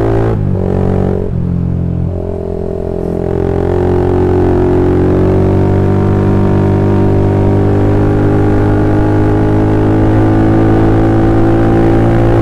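Single-cylinder Honda CB150R motorcycle running through a BPro Racing 26 cm aftermarket racing silencer while being ridden. The revs drop briefly about half a second in, then pick up again and climb slowly under a steady pull.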